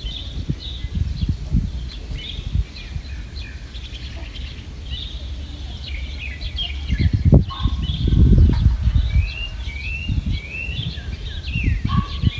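Small birds chirping and calling, with a run of three short rising chirps about nine to eleven seconds in, over a low rumbling noise that swells about seven seconds in.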